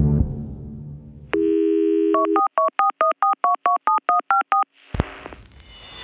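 Telephone dial tone for about a second, then about ten quick touch-tone keypad beeps dialing a number. The background music fades out beforehand, and near the end a click is followed by a rising whoosh as the music comes back in.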